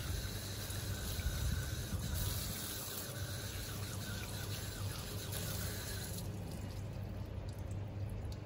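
Water running from an outdoor tap and splashing over a raw whole chicken as it is washed by hand, over a low steady hum. The splashing grows quieter about six seconds in.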